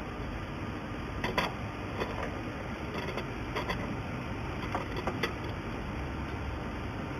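Welding machine's steady running noise, with a handful of short sharp clicks at irregular spacing through the middle.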